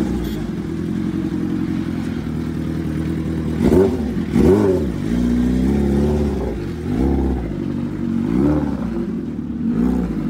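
Suzuki Hayabusa inline-four sportbike engine idling, with several short throttle blips, the two loudest about four seconds in, as the bike is manoeuvred and ridden slowly.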